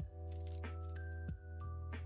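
Background music: a melody of held notes over a deep steady bass, with a regular beat about every two-thirds of a second.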